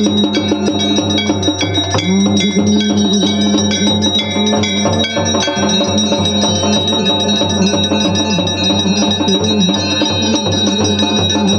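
Many brass temple bells ringing at once, struck rapidly and continuously, over a steady low hum and a held low tone.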